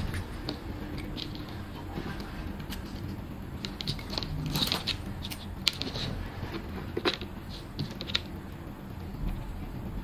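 Scattered small clicks and rustles of fiber optic patch cords and plastic SC/APC connectors being handled and plugged into a test station's adapter port, over a faint steady low hum.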